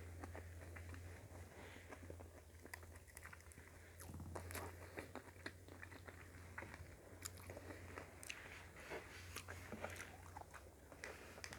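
A person chewing and eating close to the microphone, with soft, irregular mouth clicks and smacks over a steady low hum. The food is rice with sautéed vegetables and sardines.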